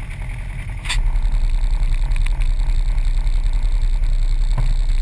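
2011 Polaris RZR XP 900's parallel-twin engine running, a low steady pulsing that steps up louder about a second in.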